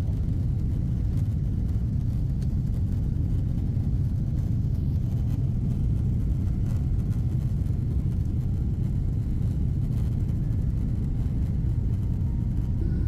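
Steady low rumble of airliner cabin noise from the jet engines and cabin air, unchanging in level.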